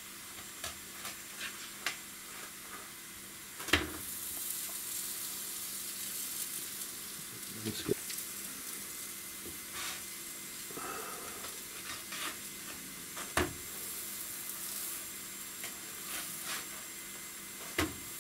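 Semolina flatbreads sizzling steadily in a non-stick frying pan while being turned over with a plastic spatula. A few sharp knocks sound as the spatula and breads hit the pan, and the sizzle grows a little louder after the first knock, about four seconds in.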